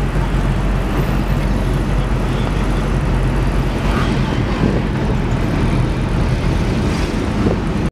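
Steady in-car driving noise: a car's engine hum and tyre and road noise heard inside the cabin while moving in traffic.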